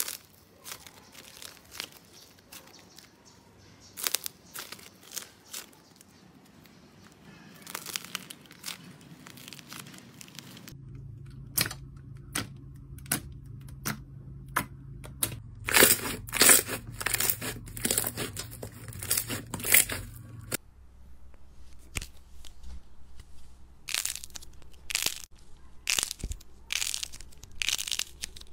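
Slime squeezed and pressed by hand, giving a run of sticky crackles and pops. The texture of the sound changes twice as different slimes are handled.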